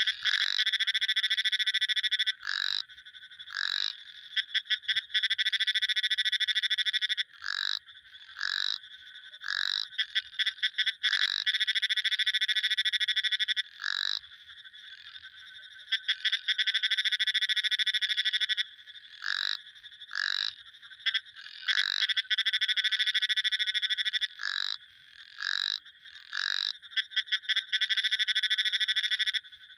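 Frogs calling: long, rapidly pulsed high-pitched trills lasting two to three seconds each, repeating every few seconds, with short single call notes in between.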